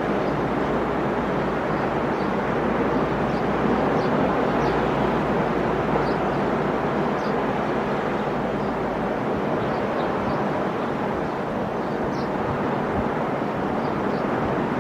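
Ocean surf washing onto a beach: a steady, continuous rush of breaking waves.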